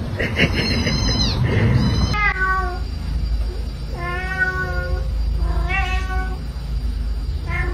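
Cats meowing: high-pitched mews in the first two seconds, then a cat meowing four times, about once every second and a half.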